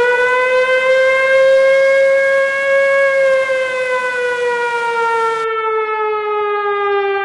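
Flood warning siren sounding one long wail that holds steady for about three seconds, then slowly falls in pitch: an emergency alarm telling residents to evacuate. Background hiss cuts out suddenly about five seconds in.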